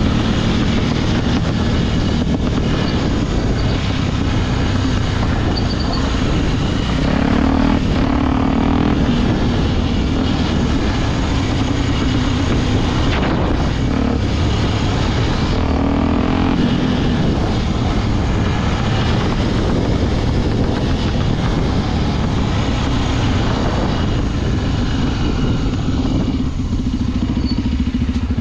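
Honda XR Tornado 293 dirt bike's single-cylinder four-stroke engine running under way, its note swelling briefly twice as the throttle opens, over a steady rush of wind and tyre noise.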